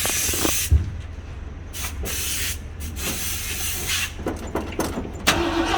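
Freshly restored 1968 Ford Galaxie's engine running with a low steady rumble, with hissing at the start and scattered bursts of noise. About five seconds in the sound jumps louder and a steady hum comes in.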